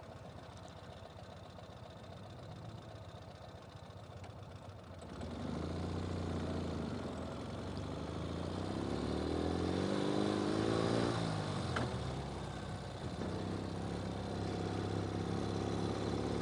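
Ural sidecar motorcycle's flat-twin engine running quietly, then about five seconds in pulling away and accelerating, its pitch rising. About eleven seconds in the pitch drops at a gear change, then it climbs again.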